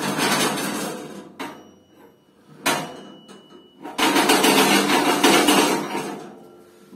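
Stainless steel grill parts being handled: two stretches of metal scraping and rattling, with sharp metallic clanks between them, one of which rings briefly.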